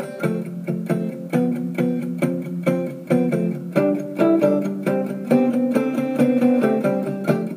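Background music: a guitar picking notes and chords at a steady pace.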